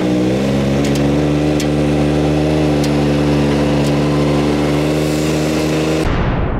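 Can-Am Maverick X3's turbocharged three-cylinder engine running steadily at low speed after a short rise in pitch, with a few faint ticks. The engine sound cuts off abruptly near the end.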